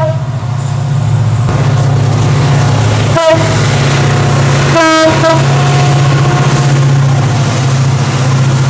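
EMD CC 205 diesel locomotives running past with a loud, steady, deep engine drone, the horn sounded in short toots: one at the start, another about three seconds in, and a slightly longer one about five seconds in.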